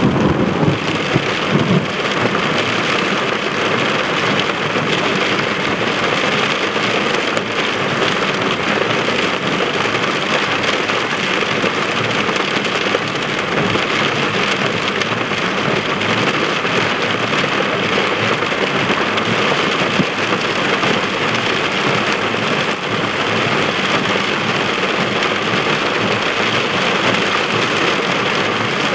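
Heavy rain pouring steadily in a thunderstorm, a dense even hiss, with a low rumble in the first two seconds.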